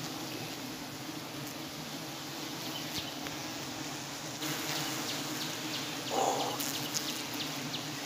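Giant honeybees (Apis dorsata) buzzing steadily in a swarm on and around an open comb, a continuous low drone. A broader hiss comes in about halfway, with a short louder rustle about six seconds in.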